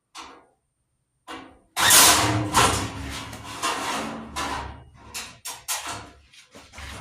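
An impact driver running down bolts in turn. There are a couple of short bursts, then one run of about three seconds, then several quick bursts as the bolts snug up.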